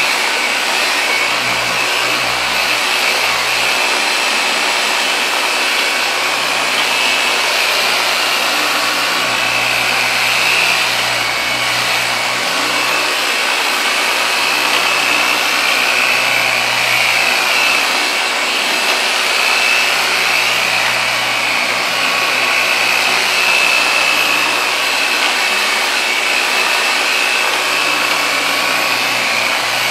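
Dual-action polisher running steadily with a polishing pad worked against car paint during the final polishing step: a continuous whir with a high whine that wavers slightly as the pad is moved and pressed.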